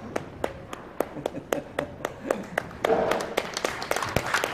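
Hand clapping in a steady rhythm, about four claps a second, with voices rising briefly around three seconds in.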